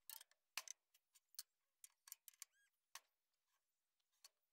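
Light, irregular knocks and clicks of a hardwood cant and a steel bar against the steel bed of a bandsaw mill as the cant is levered over, with a short squeak about two and a half seconds in.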